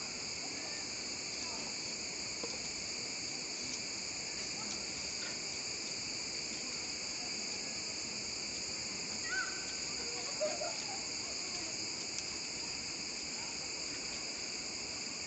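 A steady, high-pitched insect chorus drones without a break, with a few faint short sounds about two-thirds of the way through.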